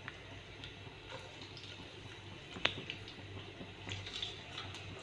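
Curry leaves, fresh coconut pieces and green chillies sizzling faintly in hot oil in a pan, with scattered small crackles and one louder click a little past halfway.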